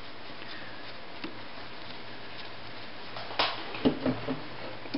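Quiet room hiss, then about three and a half seconds in a knock followed by a few small clicks and rustles as the sock on its darning hoop is handled and positioned under the sewing machine's needle and foot.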